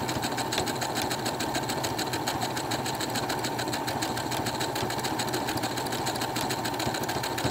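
Brother electric sewing machine running steadily, its needle stitching at a fast, even rate.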